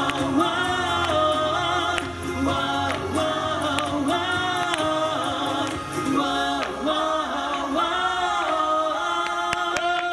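Live pop song: male voices singing in harmony over guitar accompaniment, settling onto a long held note near the end.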